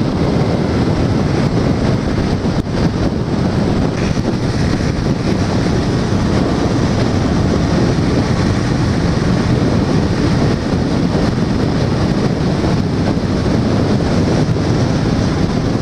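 Steady wind rushing over the microphone at road speed, mixed with the steady running of a Honda Shadow 750's V-twin engine.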